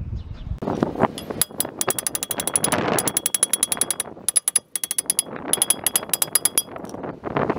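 Hammer blows on a rusted-on brake rotor, struck in quick succession to break it free of the hub: a rapid run of ringing metallic strikes, about seven a second, pausing briefly a little past the middle before a second run.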